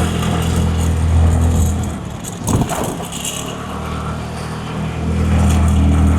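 Vehicle engine running as it travels along the road: a steady low hum that eases off for a few seconds in the middle and then picks up again. There is a short thump about two and a half seconds in.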